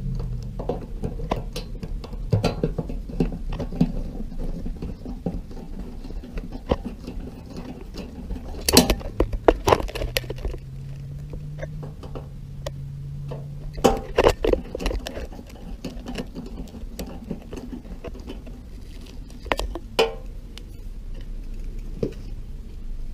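Screws being driven back into a washing machine's sheet-metal cabinet panel with a screwdriver: irregular clicks, scrapes and light metallic knocks, with louder clusters of knocks about nine and fourteen seconds in.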